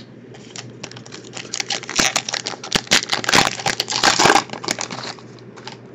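Foil wrapper of a 2014 Topps Valor football card pack crinkling and tearing as it is opened by hand: a dense run of crackles, thickest in the middle and fading out near the end.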